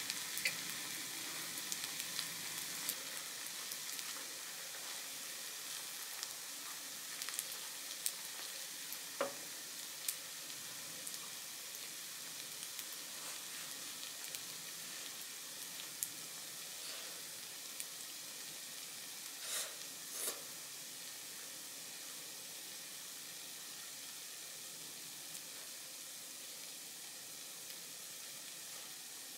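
Rice and red sauce sizzling in an electric hot-plate pan: a steady hiss with scattered small crackles, and a few louder clicks about nine seconds in and again twice around twenty seconds in.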